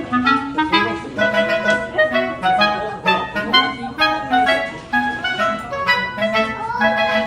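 Instrumental background music: a melody over a repeating bass line with a steady beat.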